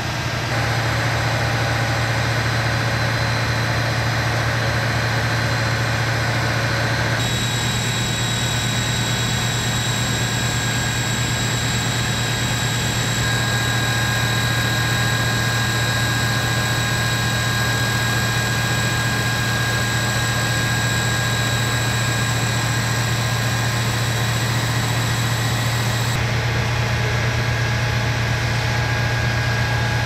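Engine running steadily at one speed: a constant low drone with faint steady high-pitched whines over it.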